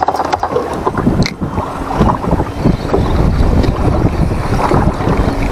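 Wind rumbling on the microphone, with sea water washing around a small boat.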